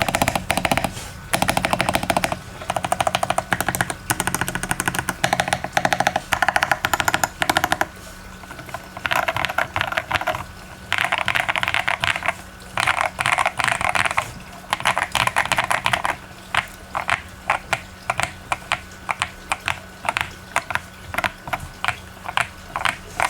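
BBOX60 mechanical keyboard with lubed Akko CS Silver linear switches on a polypropylene plate, tape-modded with thick keebtape, typed on in fast runs of keystrokes. From about two-thirds of the way in, single keys are pressed one at a time, about two a second.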